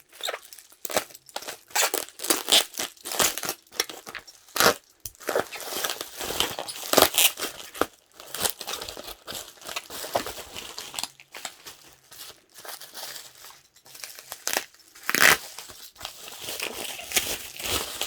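Packaging crinkling and rustling in the hands as photocards are unwrapped, in irregular crackles, with a louder crinkle about fifteen seconds in.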